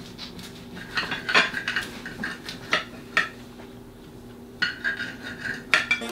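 Kitchen knife cutting through a nori-wrapped sushi roll, its blade clinking and scraping against the ceramic plate beneath. The clinks come in two clusters, about a second in and again near five seconds, over a faint steady low hum.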